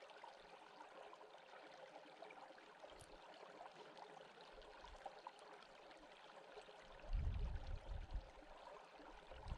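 Shallow stream running over stones: a faint, steady rush of flowing water, with a brief low rumble about seven seconds in.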